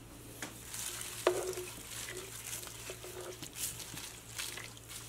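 A spoon stirring chopped kale into a pot of soup: wet rustling and scraping, with a few light knocks of the spoon against the pot, the clearest about a second in.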